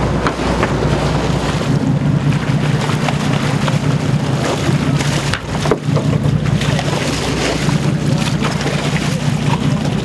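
Boat's engine running steadily while trolling, with wind buffeting the microphone and water churning alongside the hull.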